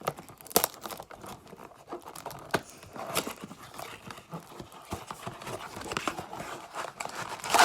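Cardboard baseball-card blaster box being opened by hand: crinkling and tearing of the wrapping with many scattered clicks and taps, and a louder rustle near the end.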